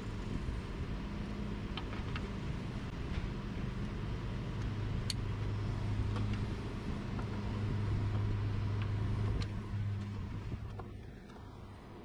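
A motor vehicle's engine running nearby as a steady low hum that fades away about ten seconds in. A few light plastic clicks come from wiring-harness connectors being plugged in under a truck's steering column.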